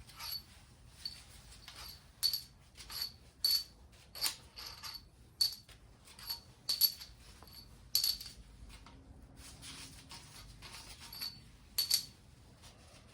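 Steel head bolts and tools clinking during cylinder-head removal on a Kubota V2203 diesel: a run of light, ringing metal clinks at irregular intervals, roughly one every half second to a second.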